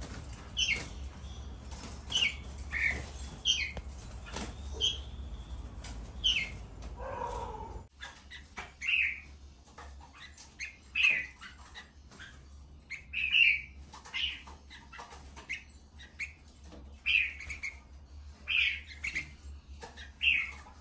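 Red-whiskered bulbuls giving short chirping calls, about one a second, over a low steady hum. About eight seconds in the hum cuts off and the calls come louder and clearer.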